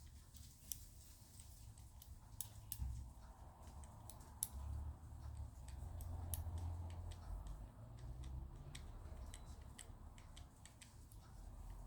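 Faint, irregular small clicks of a Squire CP combination padlock's number wheels being turned by thumb, with a low rumble of the lock being handled.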